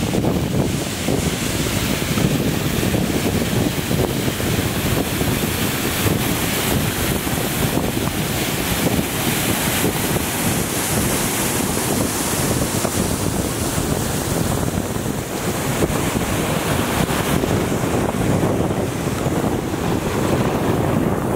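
Sand-and-seawater slurry gushing from the discharge pipe of an HID-CSD-5522 cutter suction dredger onto the reclamation fill, a steady unbroken rush. Wind buffets the microphone.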